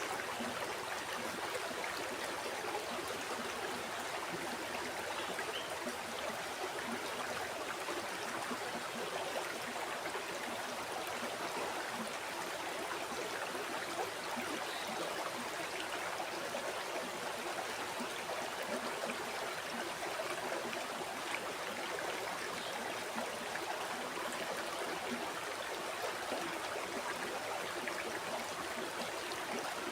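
River water flowing steadily over stones: a continuous rushing and babbling with a fine flickering texture and no change in level.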